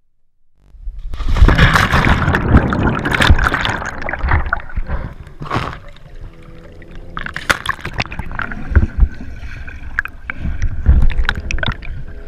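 Water sloshing and splashing around an action camera held at the surface of a lake, with heavy rumbling knocks of water against the camera housing.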